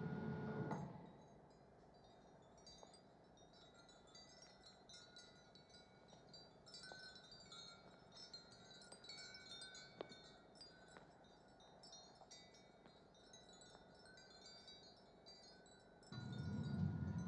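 High, irregular tinkling of wind chimes. A sliding lift door rumbles briefly at the start and again about sixteen seconds in.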